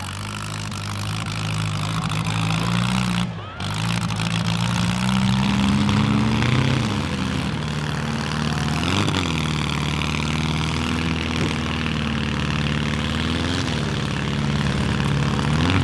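Demolition-derby compact cars' engines running hard and revving up and down repeatedly as the cars push against each other. The sound drops out briefly about three and a half seconds in.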